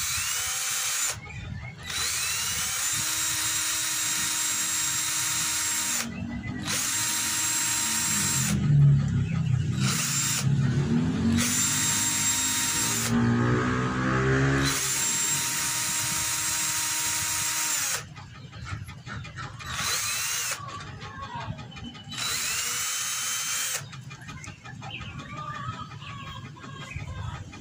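Cordless drill running in repeated bursts of a few seconds, a small bit boring the smoke hole through a carved wooden tobacco pipe. The motor gives a steady whine on each trigger pull, then stops and restarts many times, with shorter runs near the end.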